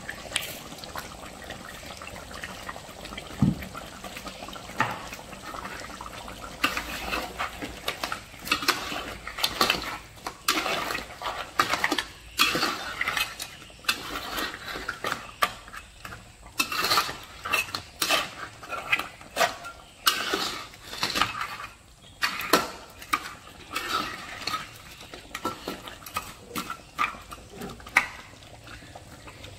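Spatula scraping and knocking against a wok and hard crab shells as crab rendang is stirred in its sauce, in a busy run of strokes from about a quarter of the way in until near the end, over a steady background hiss of the cooking sauce.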